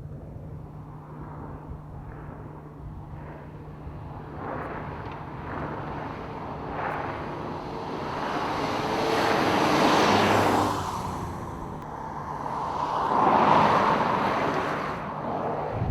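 Mitsubishi Outlander XL being driven: a steady low engine hum under a rushing of engine and tyre noise that builds into two loud swells, one about ten seconds in and one about thirteen seconds in.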